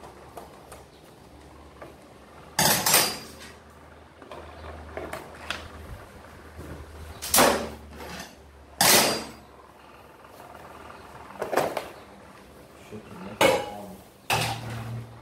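About six short clanks and rattles, a second or more apart: metal hand tools and bolts being set down and the plastic outer transmission cover of a Kymco Downtown 250 scooter being unbolted and pulled off.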